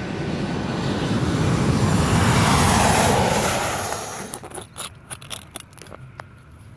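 A vehicle passing by: a rushing engine and road noise swells to a peak a couple of seconds in and dies away by about four seconds, followed by a run of short sharp clicks.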